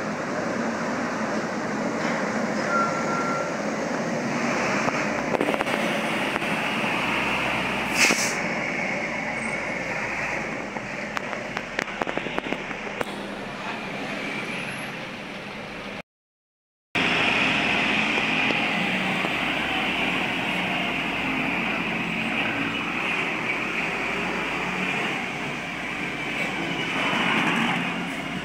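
Heavy diesel trucks and a bus passing close by on the road, a steady roar of engines and tyres. A short sharp hiss comes about eight seconds in. The sound drops out for about a second just past the middle.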